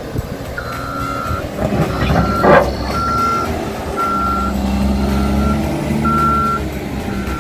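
Caterpillar 930K wheel loader's reverse alarm beeping about once a second over its running engine as the machine backs up. A short, loud burst of noise cuts in about two and a half seconds in.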